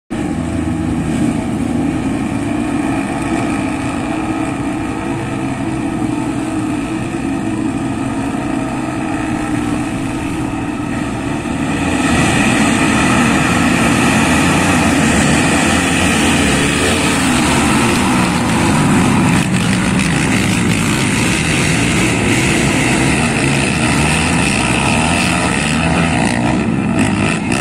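Several racing ATV (quad bike) engines running hard together, a steady mechanical drone that gets louder about twelve seconds in.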